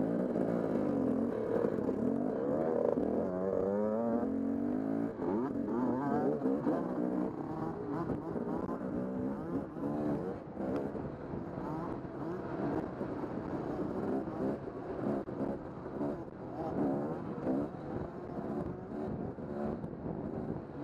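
KTM dirt bike engine, heard from on the bike, revving up and down as it is ridden, its pitch rising and falling over and over with the throttle.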